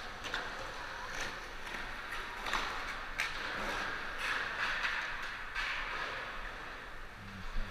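Skateboards on a concrete skatepark floor: a steady rolling hiss of wheels with scattered sharp clacks and knocks of boards.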